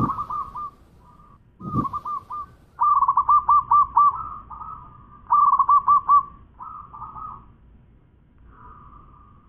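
Zebra dove (perkutut) cooing: repeated runs of rapid, rolling staccato coos with short pauses between them, the longest run lasting about a second and a half.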